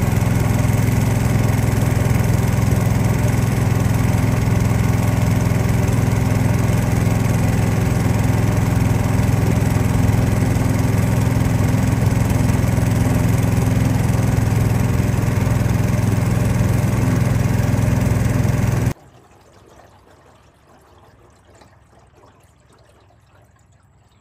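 Boat engine running steadily at a constant speed, then cutting off abruptly near the end, leaving only faint background noise.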